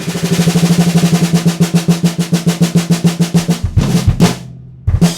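Drum kit played through two room condenser microphones: a fast, even roll of about ten strokes a second on a drum with a steady low pitch. Near the end it breaks into a few heavier hits with the bass drum, then one last accented hit that rings out.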